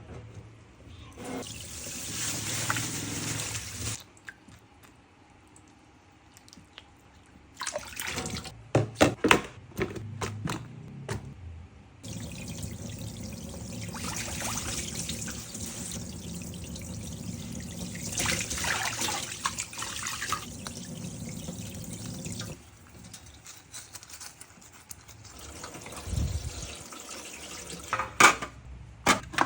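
Tap water running into a sink in a few stretches, with clicks and knocks of items being handled between them.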